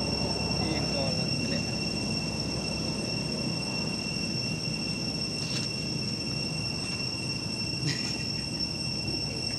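Insects calling with a steady, unbroken high-pitched tone over a low background rumble, with a couple of faint clicks late on.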